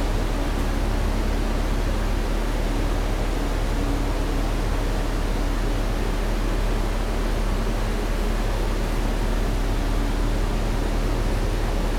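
Steady interior cabin noise of an MBTA New Flyer 1200-series diesel-electric hybrid bus under way: an even rumble and hiss of the moving bus, with a faint steady hum.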